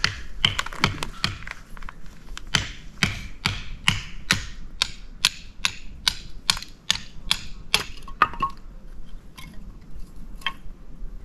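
Repeated sharp strikes of a blade on firewood, splitting kindling for a campfire: a quick cluster at the start, then a steady run of about three strikes a second that thins out after about eight seconds.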